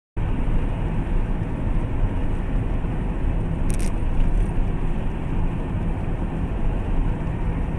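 Steady road and engine noise of a car in motion, with one short sharp click about four seconds in.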